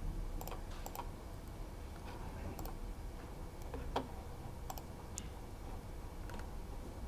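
Laptop keyboard clicked in a few scattered, light keystrokes, irregularly spaced, over a low steady room hum.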